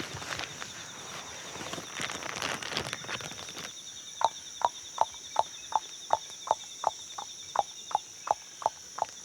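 Rainforest ambience: a steady high insect drone, with rustling steps through undergrowth at first, then about a dozen sharp clicking notes in a regular series, about three a second.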